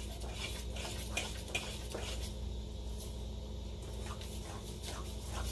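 Pancake batter being stirred by hand in a stainless steel bowl: soft, irregular scraping and tapping of the utensil against the metal as the lumps are beaten out, over a steady low hum.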